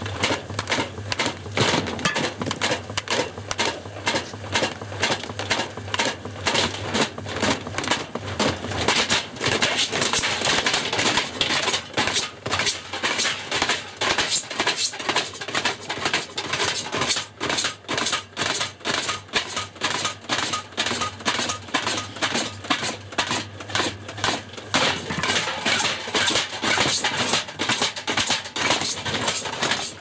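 An old VCR and sealed lead-acid batteries tumbling in the dry drum of a Fisher & Paykel washing machine turned on its side, clattering and banging without a break as the VCR's casing breaks up. A low hum runs underneath for the first nine seconds or so.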